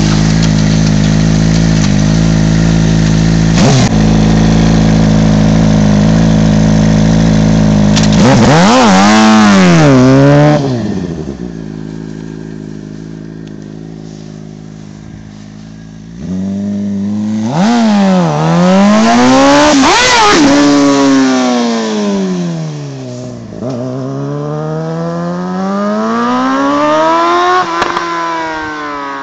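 Suzuki GSX-R600 K6 inline-four with a Micron shorty exhaust, running steadily close by, then revved hard once or twice about eight seconds in before fading away. From about sixteen seconds it is loud again, the revs climbing and dropping several times at full throttle, with a long rising run to the redline near the end.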